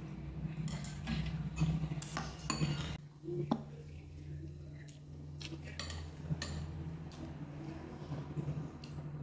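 Metal spoon and chopsticks clinking and scraping against ceramic bowls and a plate while eating, several sharp clicks scattered through, over a steady low hum.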